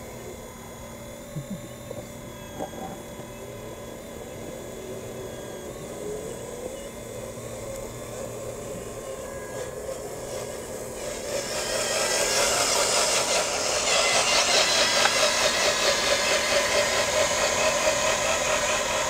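Motors and gearboxes of a radio-controlled CAT 5110 model excavator whining as it digs. About twelve seconds in, a louder, rapidly buzzing gear-motor noise joins in as a model dump truck drives up.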